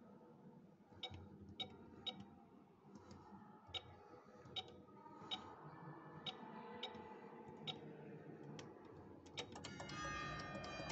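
Irregular light clicks as the keys of an electronic church-bell control panel are pressed, about a dozen in all. About a second before the end the bells start to ring.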